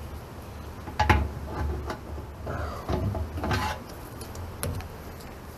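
Metal hand tools clanking and scraping against the steel hydraulic reservoir and its suction filter as the filter is worked loose: a few sharp knocks about one, three and four and a half seconds in, with rattling and scraping between them.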